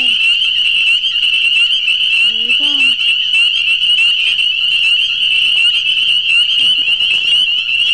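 A dense chorus of frogs calling, merging into one steady high-pitched ring without a break. Two short low voice-like calls come through near the start and about two and a half seconds in.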